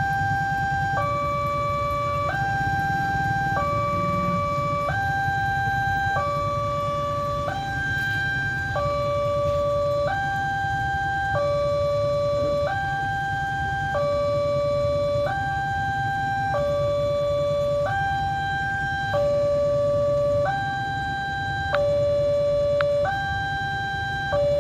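Railway level-crossing warning alarm sounding continuously. It is an electronic two-tone signal that alternates between a higher and a lower note about every 1.3 seconds, warning that a train is approaching.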